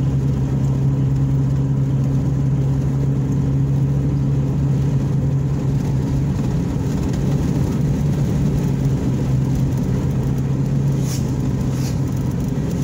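Steady engine hum and road rumble of a car cruising at an even speed, heard from inside the cabin. Two brief high clicks come near the end.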